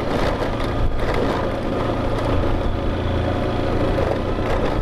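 Motorcycle engine running at a steady pace on a corrugated, muddy dirt road, with wind on the microphone and a few faint knocks from the bumps.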